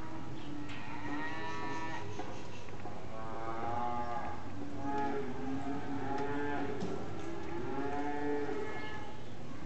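Cattle mooing: a series of long moos, one after another and sometimes overlapping, as if from more than one animal.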